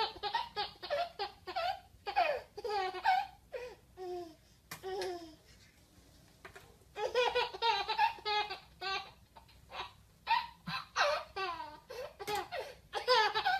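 A baby laughing in repeated bursts of giggles, with a short break about six seconds in.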